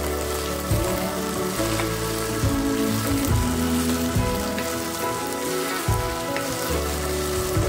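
Okra frying and hissing in hot oil as it is stirred in a pan, with a few sharp clicks, under background music of held notes and a bass line that changes every second or so.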